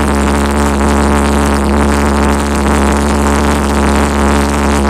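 Homemade LPG-fuelled valveless pulse jet engine running steadily: a loud, continuous drone that holds one pitch throughout.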